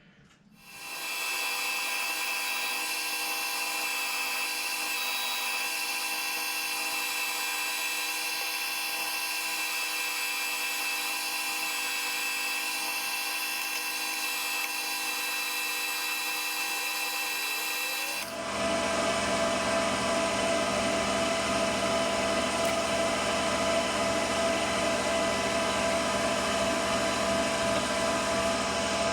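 Metal lathe running steadily while turning down a 4140 steel bar, with a steady whine made of several fixed pitches. About eighteen seconds in the sound turns louder and fuller, with a deeper note added.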